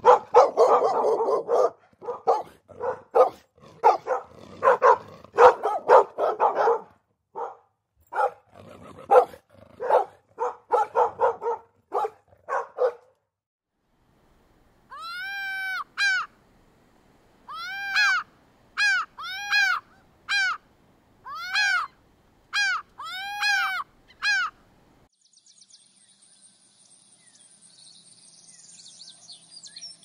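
Dogs barking in quick bursts, then after a short pause a gull calling about nine times, each call rising and falling in pitch. Near the end only a faint high hiss remains.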